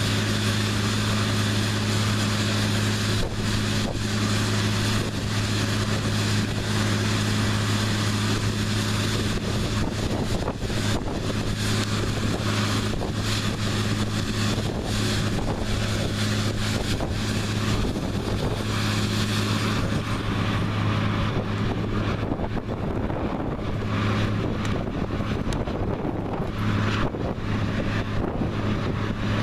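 New Holland CR9060 twin-rotor combine harvester running steadily while harvesting soybeans: a constant engine and machinery hum with a higher rushing hiss over it. The hiss eases off about twenty seconds in while the hum carries on.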